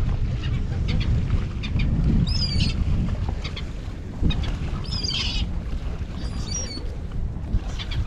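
Birds calling: three short, high-pitched, harsh calls a second or two apart, from gulls chasing a duckling. Wind buffets the microphone throughout.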